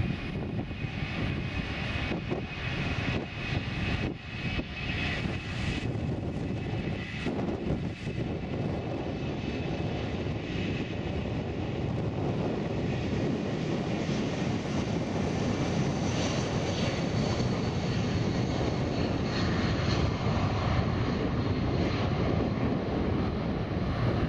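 Boeing 757-351 jet engines at takeoff thrust during the takeoff roll: a steady, dense jet roar that builds as the airliner passes, with a high whine coming in about halfway through.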